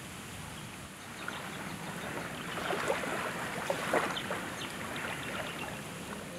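Small waves lapping onto a sandy shore, a steady wash that swells about halfway through with many small crackles as the water runs up and drains back over the sand, then eases.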